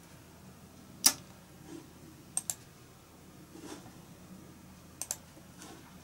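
Computer mouse clicking a few times, the loudest click about a second in and two quick double-clicks later.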